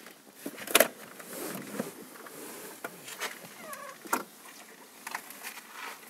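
Scattered clicks and knocks of hands handling a car seat's frame and its plastic wiring plug, the loudest about a second in and again near four seconds in.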